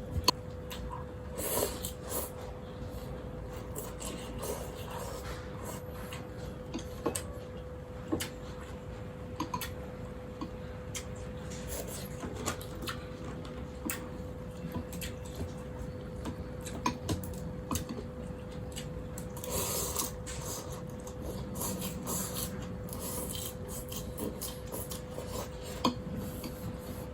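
Eating sounds: scattered clicks of chopsticks and spoon against a bowl of noodle soup, over a steady hum.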